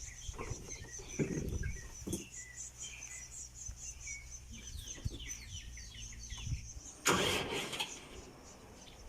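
Small birds chirping rapidly and repeatedly over a low outdoor rumble, with a brief loud rush of noise about seven seconds in.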